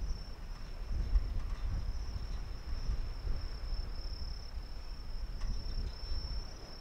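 Insects chirring in a steady high-pitched drone, over an uneven low rumble.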